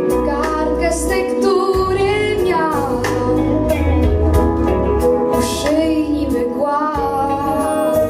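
A boy singing a pop song into a handheld microphone over instrumental accompaniment with a steady bass line, his voice gliding between held notes.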